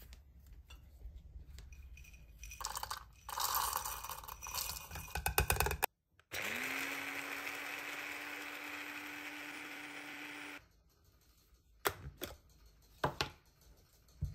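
A small electric motor spins up, rising quickly in pitch, and runs steadily for about four seconds before cutting off suddenly. Before it comes a stretch of rattling clicks and clatter, and after it a few sharp clicks.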